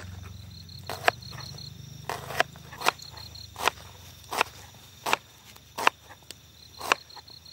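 Kitchen knife slicing a red onion on a plastic cutting board, a sharp chop about every three-quarters of a second. Insects chirp in short high trills behind it.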